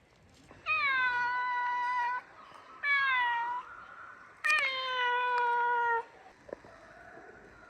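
Three long, drawn-out animal calls, each dipping in pitch at the start and then holding steady, the third lower than the first two.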